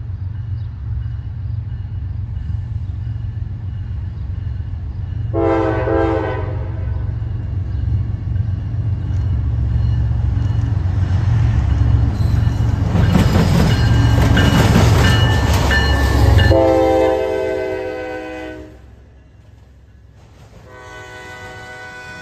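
CSX 911, a GE ES44AC diesel locomotive, passes at the head of a freight train. Its steady low engine rumble swells to its loudest about two-thirds of the way in, and its air horn sounds a short blast about five seconds in and two longer blasts as it goes by. The rumble then drops away, leaving the quieter rolling of the autorack cars.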